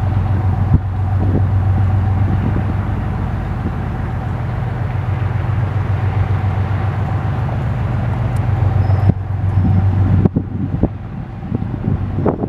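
Diesel-hauled passenger train running, with a steady low engine drone and a steady higher tone over rumbling noise. About ten seconds in, the hiss drops away and irregular low thumps follow.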